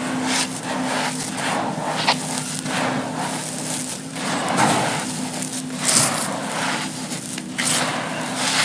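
Dry, gritty sand cones crumbling and crunching apart in a continuous run of crackling breaks, with sharper crunches now and then, loudest about two and six seconds in.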